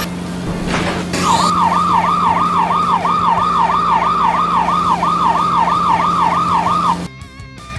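Electronic fire-engine siren, a fast wailing yelp that sweeps about two and a half times a second, starting after a short swoosh about a second in and cutting off suddenly near the end. A steady low hum runs underneath.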